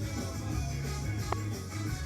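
Background music: a song with a strong steady bass line and guitar. About a second and a half in, there is one brief click.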